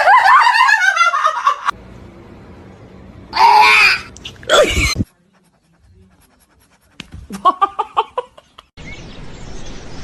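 Bursts of a person's laughter, broken up by cuts, with two short loud bursts of sound in the middle and a brief near-silent gap.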